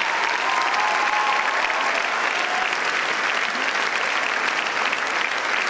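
Steady applause from many people clapping their hands, dense and unbroken.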